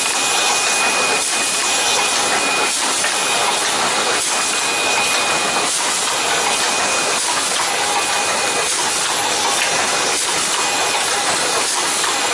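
Automatic toothpaste tube filling and sealing machine running, with a steady hiss and faint regular knocks about every second and a half as it cycles. A thin high tone comes and goes over it.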